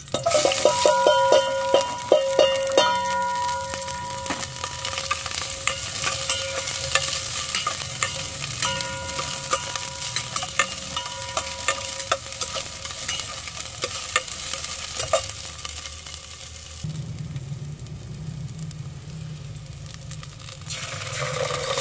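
Garlic and chopped onion sautéing in hot oil in a stainless-steel pot, sizzling, while a spatula scrapes and clicks against the pot in quick strokes, busiest in the first few seconds as the onion goes in. The pot rings with a thin steady tone during some of the stirring.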